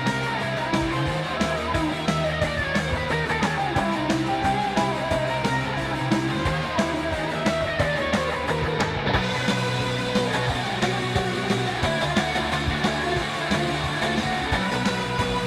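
Background music: a rock-style track with guitar and a steady beat.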